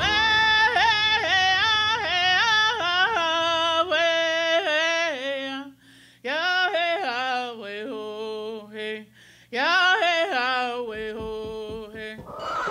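A woman singing solo and unaccompanied, her voice jumping sharply between notes in a yodel-like way, with two short pauses for breath partway through.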